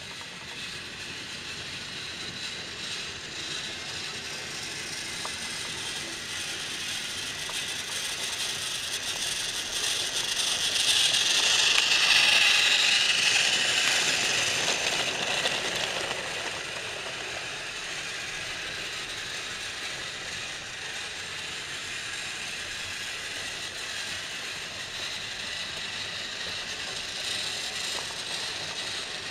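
Battery-powered Trackmaster toy trains running on plastic track, their small motors and gears making a steady mechanical whirr and rattle. It grows louder as one passes close by around twelve seconds in, then eases back.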